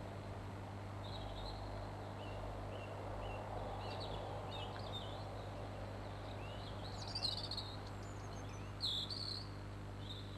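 Steady low hum under a faint background haze, with scattered short high chirps that come and go, the most prominent a little after seven seconds and again about nine seconds in.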